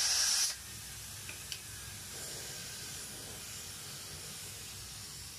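Steam hissing out of a pressure cooker's open vent pipe, with the whistle weight lifted off. The hiss stops suddenly about half a second in, and a faint click follows.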